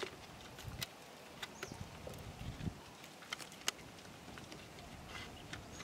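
Scattered light clicks and crackles of a thin plastic drink bottle, cut down into a fish trap, being handled as bread is pushed into it.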